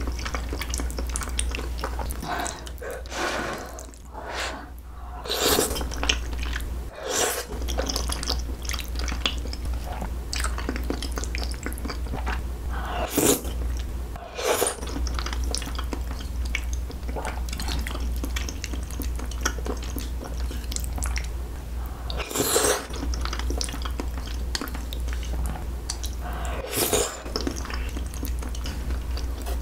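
Close-miked chewing and wet mouth sounds of someone eating saucy rosé tteokbokki and glass noodles, irregular and squishy, with occasional sharper clicks of chopsticks on a bowl.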